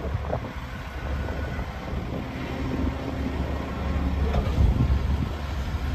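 Diesel engine of a Link-Belt 490 X4 crawler excavator running with a steady low rumble as the machine dumps a bucket of dirt into a side-dump trailer.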